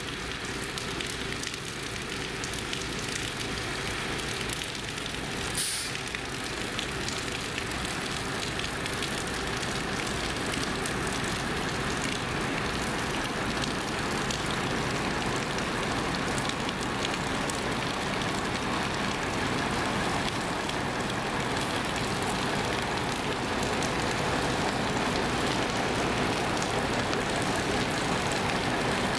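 Tour coaches' diesel engines idling, a low steady rumble under the hiss of rain on wet pavement, slowly growing louder, with a short sharp hiss about six seconds in.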